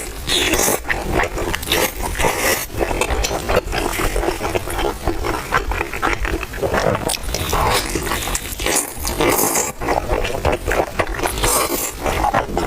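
Close-miked chewing and crunching of a crispy thin-crusted stuffed pie, with wet smacking mouth sounds and many sharp crackles of the crust.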